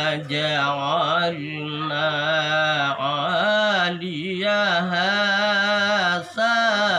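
A man reciting the Quran aloud in Arabic in a melodic chanted style, holding long drawn-out notes with wavering, ornamented pitch. Brief breaths or pauses come about three, four and six seconds in.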